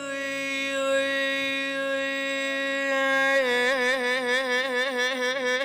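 A man singing one long held note unaccompanied, in Iraqi vocal style. The note is steady for about three seconds, then turns into a quick, wavering vibrato.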